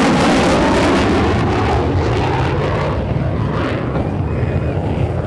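F-35 fighter jet on a high-speed pass, a loud rushing jet roar whose higher part fades after about three seconds, leaving a low rumble as it draws away.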